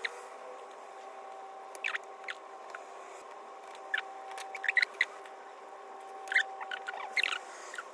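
Small wooden kumiko strips clicking and tapping irregularly as they are pressed and slotted together into a lattice, with a few clusters of quick clicks. A faint steady hum runs underneath.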